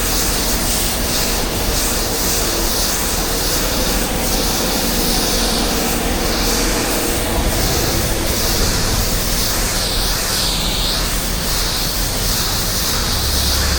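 Pressure-washing rig spraying a sodium hypochlorite solution onto concrete. A steady hiss of spray sits over the rig's running engine and pump.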